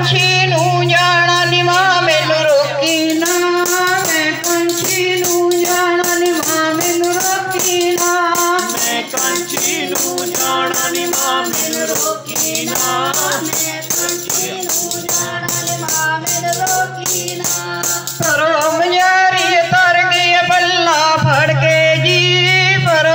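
Devotional song: a voice singing over a steady low drone, with rattling, tambourine-like percussion keeping a fast beat. The drone drops out for much of the middle and comes back near the end.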